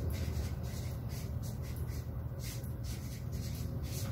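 Felt-tip marker writing on flip-chart paper: a run of short strokes as a word is written, over a low steady hum.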